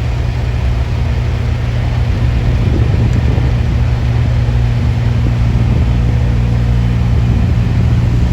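Diesel engine of a show truck idling: a steady low rumble with a hum.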